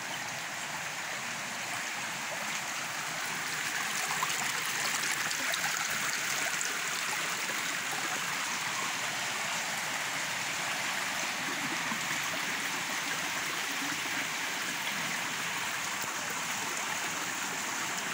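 Steady rush of running water from a river below the trail and the water channel flowing right beside the path, growing a little louder over the first few seconds.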